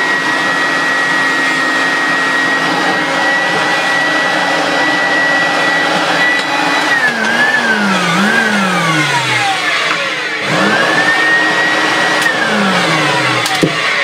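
Goblin Laser 2500 Plus upright vacuum cleaner's motor running with a steady high whine, then losing power about seven seconds in and winding down with two brief pick-ups. It spins back up about ten and a half seconds in and winds down again near the end. The motor is turning on and off as the vacuum is moved, which the owner puts down to a break in the power cable.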